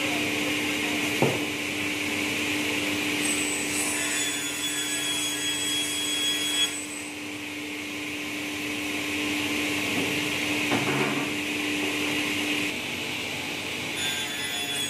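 Sliding table panel saw running and cutting a laminated board: a steady machine hum and hiss, with a higher whine for a few seconds mid-cut and a couple of knocks from the sliding table.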